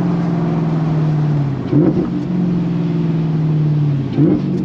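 Camaro ZL1 1LE's supercharged V8 running under the cabin, its note sagging slowly as the car eases off, with brief rises in revs about two seconds in and again near the end.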